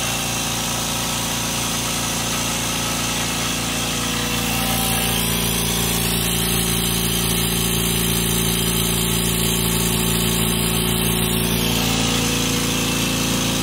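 Kobalt Quiet Tech air compressor running steadily as it pumps up its tank, a continuous motor-and-pump hum that grows a little louder about four seconds in.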